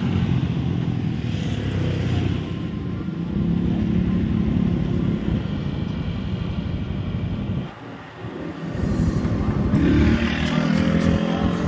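Street traffic: motor scooters and cars running and passing close by, a steady low engine rumble that drops briefly about two-thirds of the way through and then swells again as another engine passes.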